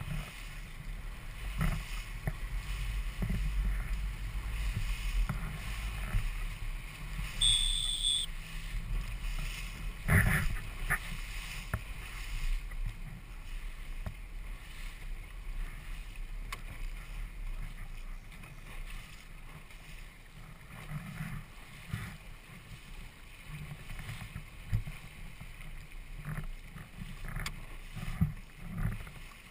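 Wind buffeting the microphone over water splashing around a small boat's hull, with scattered knocks. A short high beep sounds about eight seconds in.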